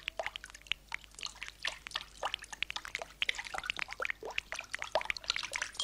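Rain as a sound effect in an animated cartoon: a steady run of quick, irregular water drops plinking.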